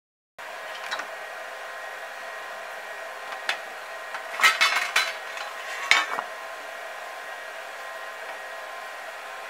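Metal-spinning lathe running with a steady hum. Several sharp metallic clinks and knocks between about three and a half and six seconds in, as the thin brass banjo tone ring and the wooden form are handled.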